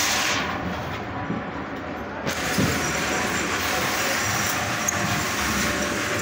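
Steady din of a busy loading floor, with a couple of short knocks as foam and wooden boxes are handled and set down.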